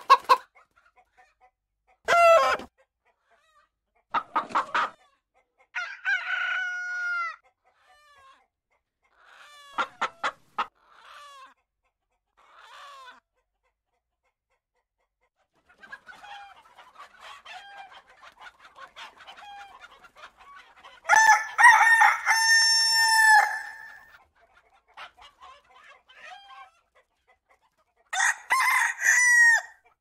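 Backyard hens clucking in short separate calls, with a rooster crowing once, long and loud, about two-thirds of the way through. Another loud rooster call comes near the end.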